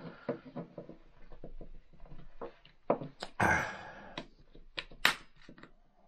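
Plastic clicks, taps and rattles from the case of an old hands-free phone handset being pried apart at its snap-fit and handled. A louder rustling scrape comes about three and a half seconds in, and a sharp click about five seconds in.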